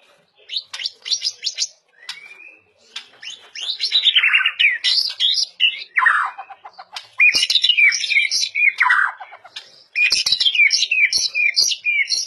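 White-rumped shama (murai batu) singing: loud, varied phrases of whistles, quick chirps and trills, broken by short pauses, ending in a run of repeated chirps.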